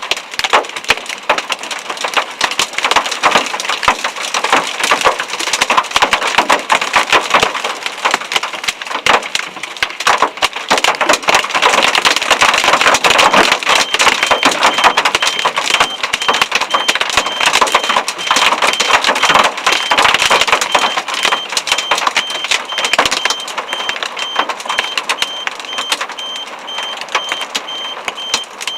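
Hail pelting down: a dense, continuous clatter of hailstones striking a hard surface. It grows heavier about halfway through and eases a little near the end.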